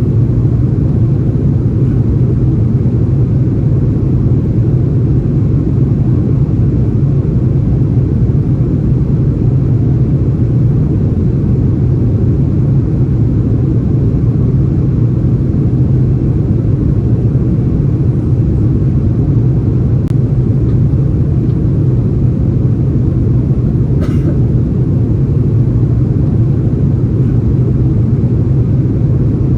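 Steady low rumble of an Airbus A330-343's engines and rushing air heard inside the passenger cabin, with a couple of faint ticks.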